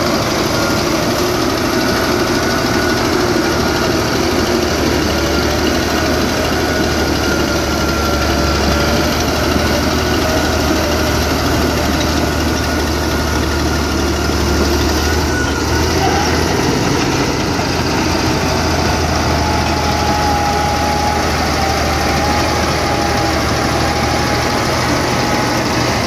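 Caterpillar D6D crawler bulldozer's six-cylinder diesel engine running hard under load, with its tone shifting about sixteen seconds in.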